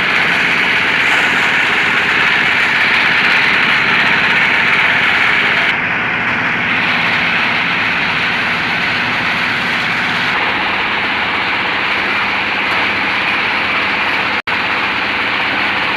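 An engine running steadily, loud, its tone changing slightly about six and ten seconds in, with a brief dropout near the end.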